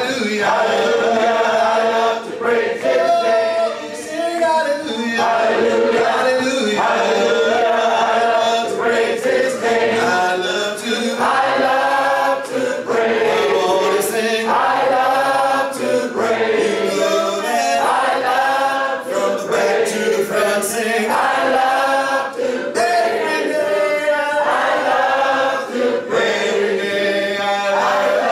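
Church congregation singing together a cappella, many voices without instruments in long, held phrases.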